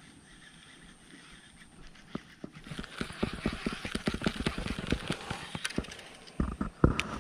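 Close movement noise of an angler wading through shallow marsh water and mud: irregular knocks, squelches and sloshing that start about two seconds in and grow louder, with two heavy thumps near the end.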